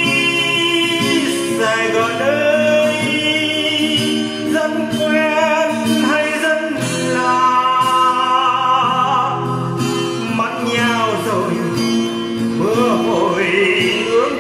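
A slow ballad sung with long, wavering held notes over acoustic guitar.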